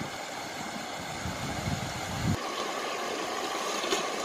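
Steady rush of river water pouring over rocks and a small rapid. The sound changes character about two seconds in, and a short sharp splash comes near the end.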